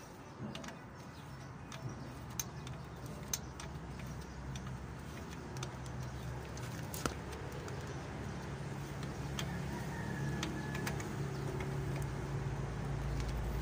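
A motor vehicle's engine runs with a low, steady hum that grows gradually louder. A few sharp metal clicks come from a wrench at the truck's steering knuckle, mostly in the first half.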